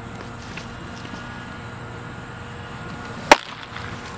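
A single sharp, loud pop about three seconds in: a pitched baseball smacking into the catcher's leather mitt.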